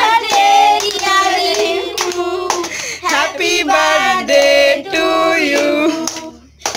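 A group of children and women singing a birthday song together, with hands clapping along; the singing breaks off about six seconds in.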